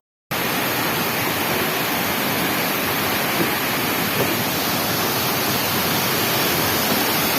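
Steady rushing roar of a high waterfall, Mantayupan Falls, falling water close by. It cuts in abruptly after a split-second gap of silence at the start.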